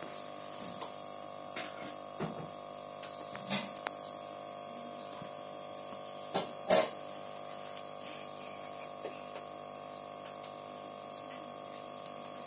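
Steady electric hum of an aquarium's submersible filter pump, made of several fixed tones. A few short sharp knocks cut across it, the loudest pair about six and a half seconds in.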